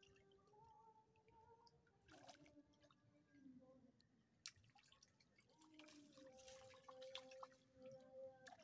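Faint splashing and dripping of water, in short irregular bursts, with a faint tune of long held notes underneath.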